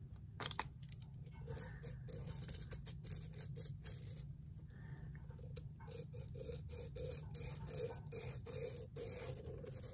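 Pen scratching on paper as it traces around a roll of tape, in a run of short, faint strokes, with a light knock about half a second in.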